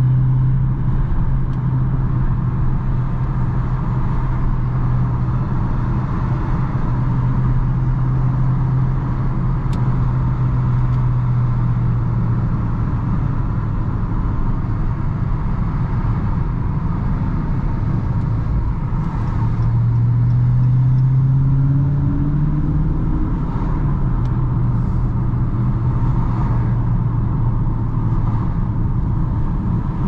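Dodge Charger Daytona 392's 6.4-litre HEMI V8 running at highway cruising speed, heard from inside the cabin over steady road and tyre noise. About twenty seconds in, the engine note rises in pitch for a few seconds as the car picks up speed, then settles back to a steady note.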